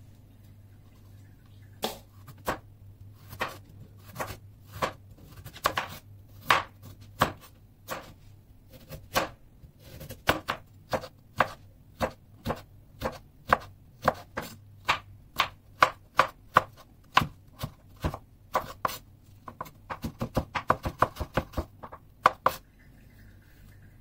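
Chef's knife chopping carrots on a wooden cutting board. The knocks come one at a time at first, speed up, then turn into a quick run of rapid chops near the end before stopping.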